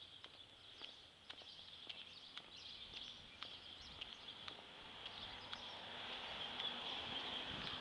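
Footsteps on a concrete sidewalk at an easy walking pace, about two steps a second, over a steady high-pitched insect drone that grows louder in the second half.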